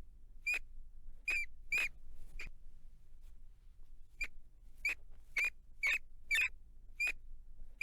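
Rat squeaking: a string of short, sharp, high-pitched squeaks, about two a second, with a pause of nearly two seconds midway.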